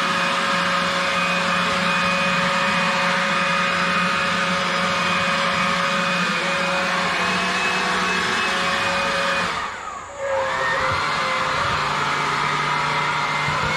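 Ryobi handheld leaf blower running steadily, blowing dust off a mounted deer's hide. About ten seconds in, the motor briefly winds down and spins back up as the lever is eased off and squeezed again.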